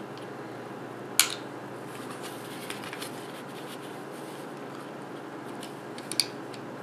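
Two sharp plastic clicks, about five seconds apart, as a thin flathead screwdriver pries at the clips of a MakerBot Smart Extruder's plastic housing; the first is the louder. A steady low hiss lies under them.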